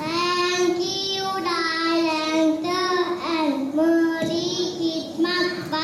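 A child's voice singing a song in long held notes that bend a little in pitch, coming in suddenly.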